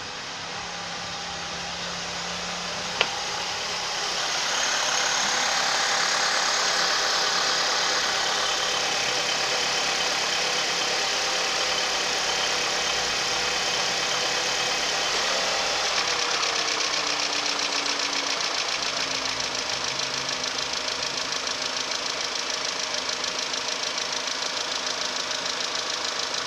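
Škoda Octavia III's 1.8 TSI turbocharged four-cylinder petrol engine running soon after a cold start, with a knock the owner hears while it warms up and afterwards. There is a single sharp click about three seconds in. About sixteen seconds in, a tone drops in pitch and the running settles into a rapid, even pulsing.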